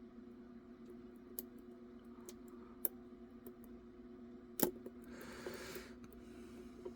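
Lock pick working the pins of a pin-tumbler challenge lock under light tension: scattered small clicks, with two sharper clicks about three seconds and four and a half seconds in.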